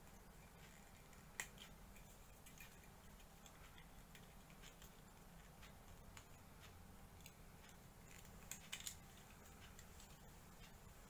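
Near silence with a low steady hum, broken by a few small sharp clicks: one about a second and a half in, and three close together around eight and a half seconds in.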